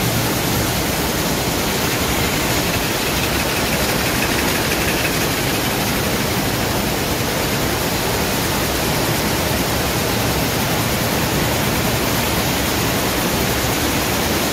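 Dornier weaving looms with Stäubli dobbies running in a weaving shed: a loud, steady mechanical din with no let-up.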